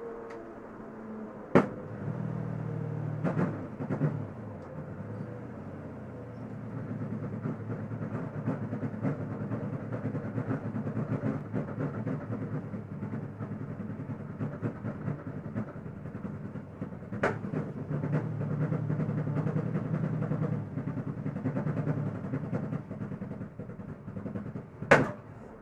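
Holden Commodore race car's V8 engine running steadily at low revs, heard from inside the stripped-out cabin, with four sharp knocks through the car.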